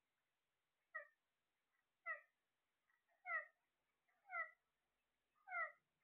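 Caged Alexandrine parakeets calling: five short calls about a second apart, each sliding slightly downward in pitch.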